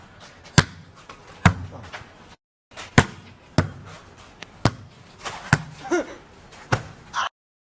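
A volleyball being struck back and forth: about seven sharp smacks of hands and arms on the ball at uneven intervals, roughly one a second.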